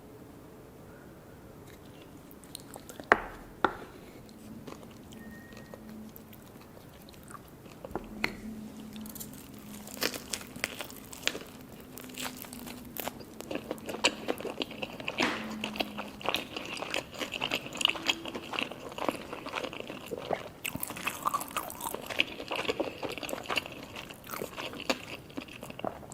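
Close-up eating sounds of a sushi hand-roll cone: biting into the crisp seaweed wrap and chewing, with dense, irregular crunching that builds from about a third of the way in. Two sharp clicks a few seconds in are the loudest sounds.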